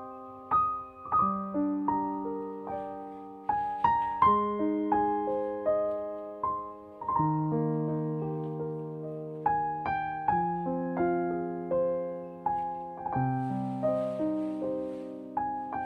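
Background solo piano music: a slow melody over chords, each note struck and left to ring and fade.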